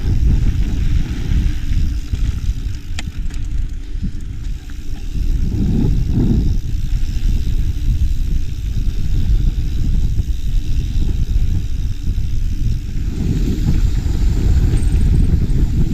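Mountain bike ride heard through a GoPro: wind buffeting the microphone and tyres rumbling over a dirt trail, a dense low rumble that dips briefly about four seconds in.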